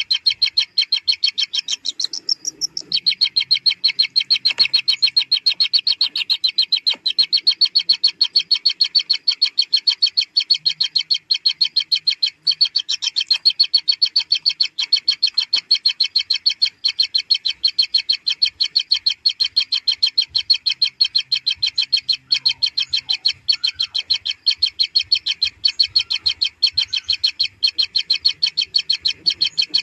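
Kingfisher nestlings calling for food: an unbroken, even run of high, rapid notes, several a second.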